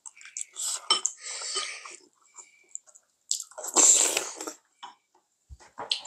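Close-miked eating noises: two long, noisy spells of slurping and chewing, the second and louder one about three and a half seconds in. A few light clicks of spoon and chopsticks against bowls come in between.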